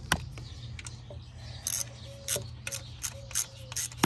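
Irregular metallic clicks and taps of a socket wrench being handled and fitted onto a thermostat-housing bolt, more frequent in the second half, with one loud click near the end, over a steady low hum.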